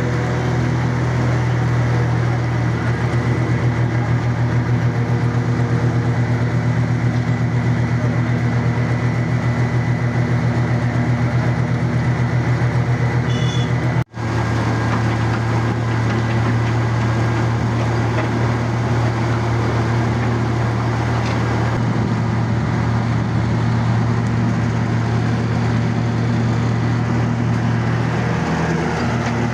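Engine of a side-wall construction machine running steadily, with a momentary break about halfway through.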